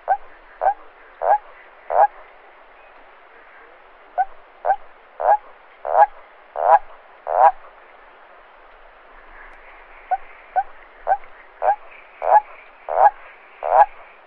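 A toad croaking in repeated bouts. Each bout is a run of four to seven croaks about two a second that grow louder and longer as it goes on, and a couple of seconds' pause separates the bouts.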